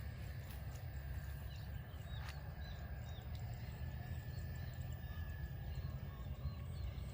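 Outdoor countryside ambience: a steady low rumble with a few faint bird chirps and a thin, steady high-pitched tone.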